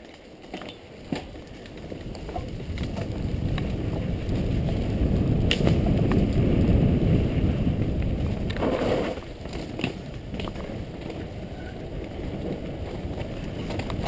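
Mountain bike riding fast down a dirt singletrack: a rushing, rumbling noise of wind on the microphone and tyres over the dirt, with scattered knocks and rattles from the bike over bumps. It builds over the first several seconds as speed picks up and eases a little after about nine seconds.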